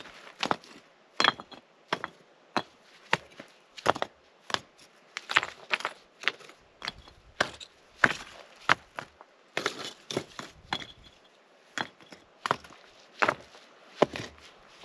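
Rocks and leftover charcoal in a stone fire ring knocking and clinking as they are picked up and dropped, a string of sharp, irregular knocks about two a second.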